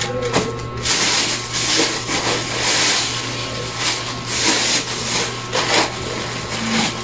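Plastic packaging rustling and crinkling as a wrapped item is handled and unwrapped, over a steady low electrical hum.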